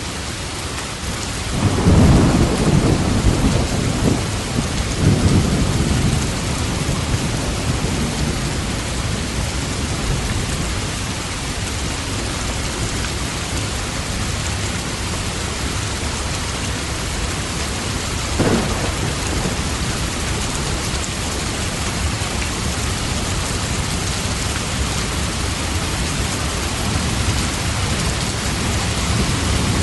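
Steady rain with thunder: a low rumble rolls in about two seconds in and swells again around five seconds, a short sharper clap comes a little past the middle, and more rumble builds near the end.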